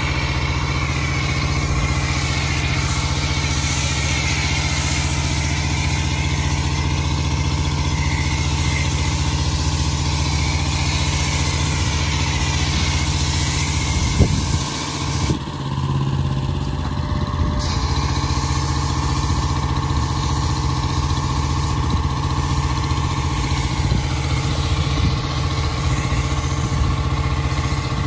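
Small gasoline engine of a pressure washer running steadily, with the hiss of a foam cannon spraying over it; the spray cuts out for about two seconds midway.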